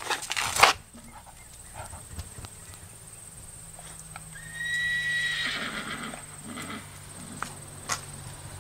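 Beagle whining once about halfway through, a high drawn-out call of about a second and a half. It follows a few sharp clicks on the concrete near the start, with a low steady hum underneath from midway on.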